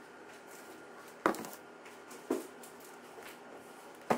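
Four short knocks and taps of gift boxes and packages being handled and set down, the loudest just over a second in.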